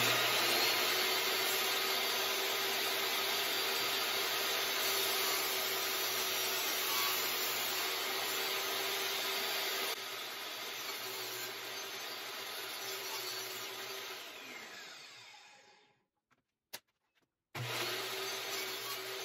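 Portable table saw running and cutting through a wooden sheet. The motor is then switched off and winds down with a falling whine. After a short pause with a single click, it starts up again near the end.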